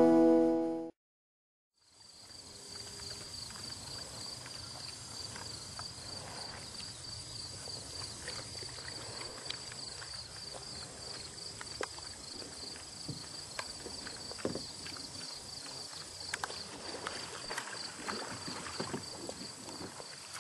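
Guitar music cuts off about a second in, followed by a brief silence. Then insects call in a steady, high, pulsing chorus, with faint scattered knocks and rustles.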